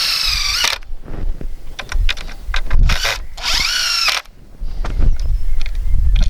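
Cordless drill driving screws through a wooden batten into the frame: two short whining runs, the second about three seconds after the first, with knocks and clicks of handling between.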